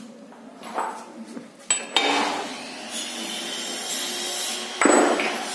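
Steel motorcycle crankshaft parts and tools clinking and scraping as they are handled on a metal bench fixture, with sharp knocks a little under two seconds in and a louder clunk near the end.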